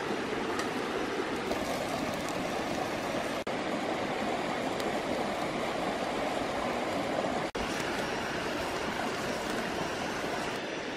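Steady rush of a shallow stream running over rocks. The sound drops out for an instant twice, about a third and two-thirds of the way through.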